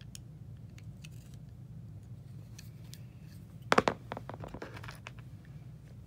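Small metal lighter parts handled, with a quick cluster of sharp clicks a little before the four-second mark, a few lighter clicks just after, and faint ticks elsewhere over a steady low hum.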